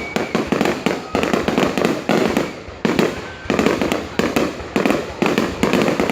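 Fireworks going off: dense volleys of sharp cracks and bangs that come in waves, swelling and easing about once a second.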